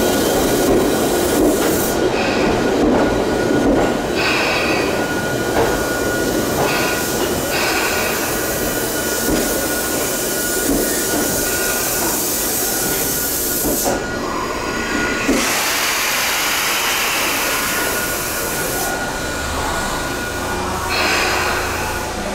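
Tobu 10030-series electric train moving slowly into a station platform, its wheels squealing steadily over a continuous rumble of wheels on rail.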